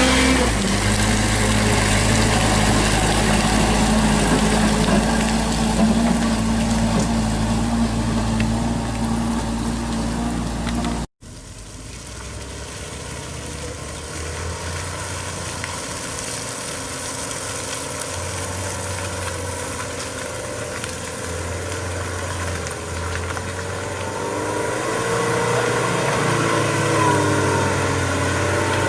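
Truck engine running steadily, then a sudden cut. After it, an engine runs quieter with noise, its pitch rising and falling near the end.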